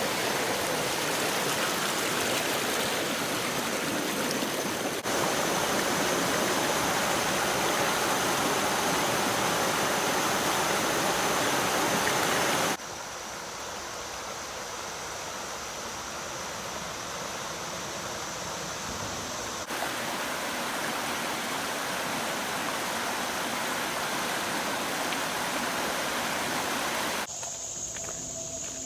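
Steady rushing of fast-flowing creek water over rocks, growing louder or softer abruptly a few times. Near the end it gives way to acoustic guitar music.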